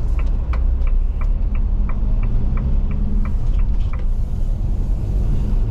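Road and engine rumble inside a moving vehicle's cabin, with the turn indicator ticking about three times a second until about four seconds in.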